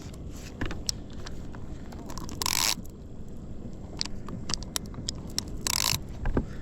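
Wind rumbling on the microphone aboard a fishing kayak, with small clicks and scrapes of tackle being handled, and two short hissing bursts, about two and a half and five and a half seconds in.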